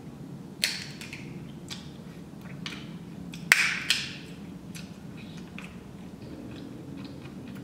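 Shellfish shells being cracked and peeled by hand from a seafood boil: a few sharp snaps, the loudest about three and a half seconds in, with faint ticks and rustles between.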